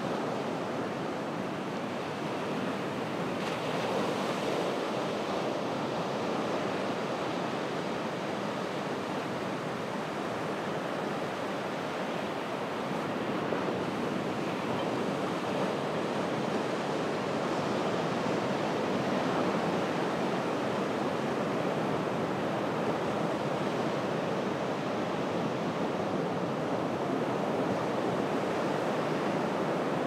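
Ocean surf at low tide washing onto a beach: a continuous rush of breaking waves. It swells gently in level rather than landing as single big crashes.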